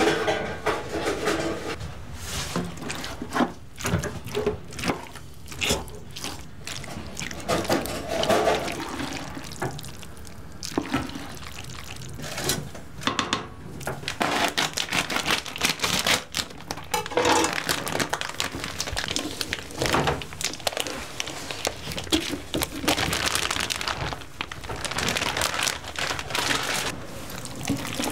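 Raw shredded beef and diced chicken being handled in plastic bags and a pot: wet squelching and sloshing of the meat with plastic-bag rustling, an irregular run of small wet clicks and rustles.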